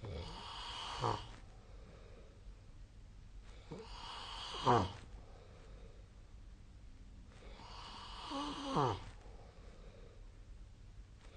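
A sleeping person snoring: three snoring breaths about four seconds apart, each a rough rushing breath that ends in a rattling tone falling sharply in pitch.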